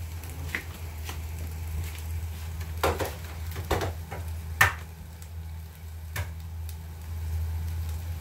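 Food stir-frying in a pan with a faint sizzle: a cooking utensil knocks and clinks against the pan at irregular moments, the loudest a little past halfway, over a steady low hum.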